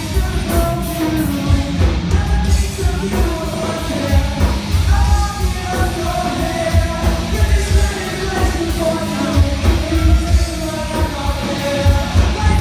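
Live rock band playing loud with a singer over a driving, rapid kick-drum beat.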